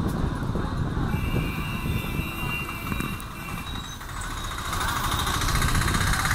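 City bus running, its engine and road rumble heard from inside the bus. A thin high tone sounds for about two seconds starting about a second in, and the noise brightens near the end.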